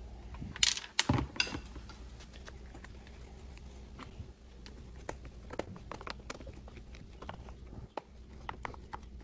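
Clicks and knocks of the pole saw's plastic housing being handled, with a few sharp, loud ones about a second in, then light scattered clicks as a screw is set with a hand screwdriver.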